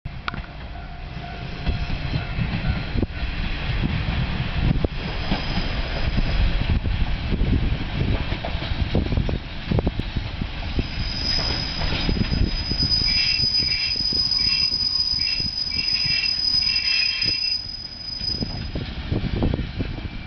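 Diesel railcar pulling into a station: low rumble with knocks from the wheels over rail joints. About halfway through, a steady high-pitched squeal of wheels and brakes sets in with pulsing squeals on top as the train slows, fading out shortly before the end.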